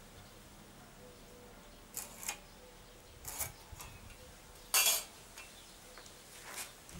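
Carpentry tools handled on pine boards while marking them: a few short scrapes and clicks, the loudest about two-thirds of the way through.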